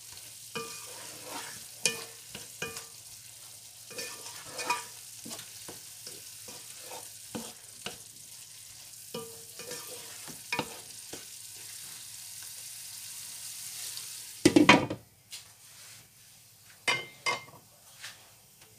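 Wooden spoon stirring diced vegetables in tomato sauce in a nonstick pan, with repeated short scrapes and knocks over the steady sizzle of the simmering stew. About fifteen seconds in comes a louder clatter as the glass lid goes on, after which the sizzle goes quiet and only a few light knocks remain.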